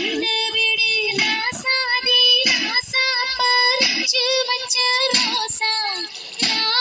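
A song with a high-pitched singing voice playing through a small speaker that has a 3-inch woofer and a tweeter. It is thin in the bass.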